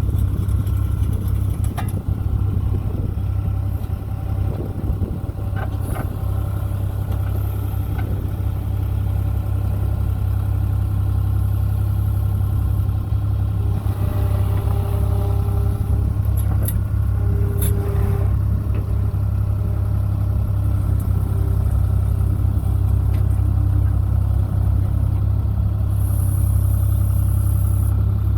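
Skid steer engine running steadily at a constant speed, driving a hydraulic auger attachment, with a few faint clicks and a higher tone that comes and goes in the middle.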